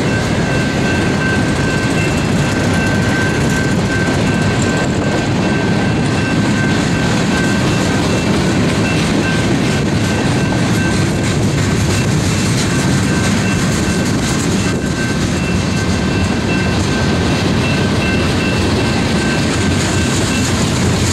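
Freight train's cars rolling past, steel wheels rumbling and clacking over the rails in an even, unbroken run, with a steady high-pitched tone above the rumble.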